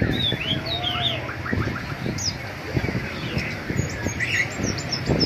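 Many caged birds chirping and calling at once: short chirps and quick whistles that swoop up and down, with a longer lower whistle about a second in. Low knocks and bumps run underneath.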